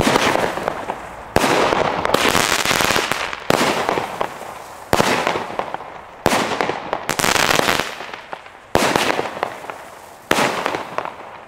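StarTrade Krawallmonster 40 firework battery, a 9-shot 20 mm cake, firing shot after shot: about six sharp reports roughly every one and a half to two seconds, each followed by a crackling tail that fades away.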